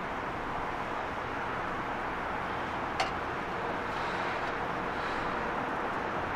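Steady noise of heavy machinery and city background, with one sharp knock about three seconds in.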